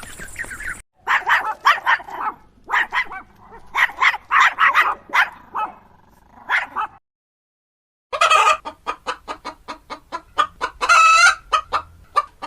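Chicken clucking in groups of short calls, then after a second of silence a quick run of clucks, about four a second, with a longer squawk near the end.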